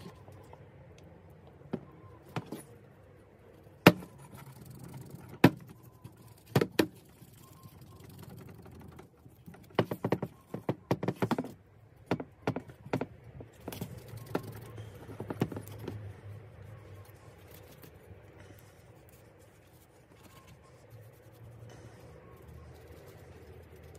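Scattered sharp clicks and light metallic knocks as a bicycle fork is handled and rubbed with a cloth. A few single clicks come first, then a quick run of them in the middle, then it goes quiet near the end.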